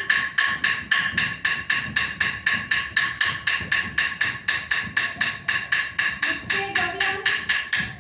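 Dancers' ankle bells jingling with each stamp of bare feet on the floor, an even beat of about four or five stamps a second: the tattadavu, the first stamping step of classical dance footwork. The beat stops sharply at the very end.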